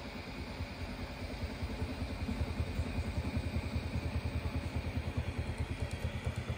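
FDM 3D printer printing a PLA ring: its stepper motors hum with a fast, even pulsing as the print head traces the circle, over the steady whir of the cooling fans. The pulsing grows louder about a second and a half in.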